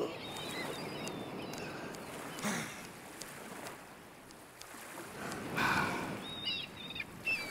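Ambient wash of sea and wind noise, with a few short high chirps about half a second in and again near the end.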